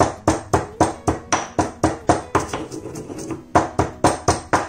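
Stone pestle pounding cardamom pods in a stone mortar: a steady run of sharp knocks, about four a second, with a brief pause about three seconds in.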